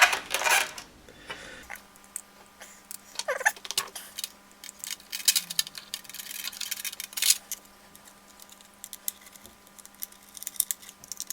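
Irregular small clicks and taps of plastic transmitter parts and small screws being handled as a Futaba T8J radio-control transmitter is reassembled, over a faint steady hum.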